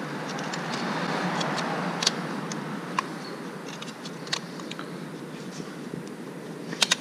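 Small sharp metal clicks of a thin pick working a thermostat out of its housing on a four-stroke Mercury outboard, a few single clicks and then a quick run of three near the end, over a steady background rumble.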